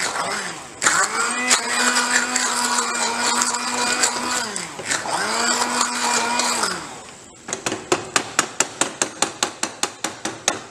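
Hand blender motor whirring as it purées softened raw mango chutney in a pan. It spins up about a second in, runs steadily, winds down briefly, then runs again until about seven seconds in. After it stops, a fast, even series of sharp clicks, about six a second, follows.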